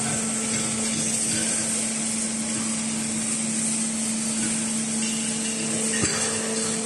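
Hydraulic tyre baler's power unit running with a steady hum and hiss. A single sharp knock comes about six seconds in.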